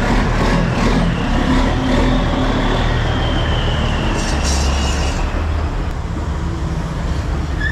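Steady motor-vehicle engine and traffic noise, with a faint falling whine midway.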